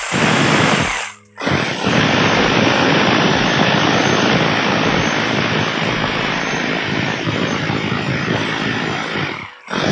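JCB 26 mm rotary hammer drill running in chipping (hammer-only) mode with its bit pressed against a steel block. It runs briefly, stops about a second in, then runs again steadily until shortly before the end. It is hammering properly after its hammer mechanism was repaired.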